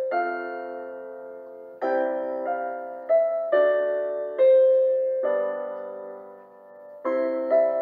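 Slow, gentle solo piano music: chords struck every second or so, each left to ring and fade.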